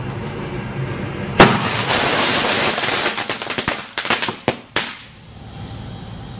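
A series of sharp bangs with crackling between them, like fireworks going off. The biggest bang comes about a second and a half in and is followed by a couple of seconds of dense crackle, then a few single pops.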